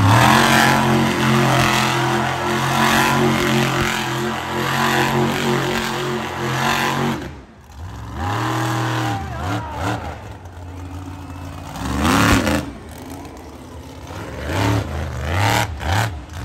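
Monster truck engine held at high revs for about seven seconds, then cut off and revved up and down in a series of short blips, the loudest about twelve seconds in.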